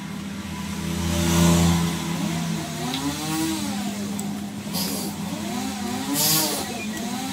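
A motor vehicle engine running steadily, swelling louder about a second in, then revving up and back down twice.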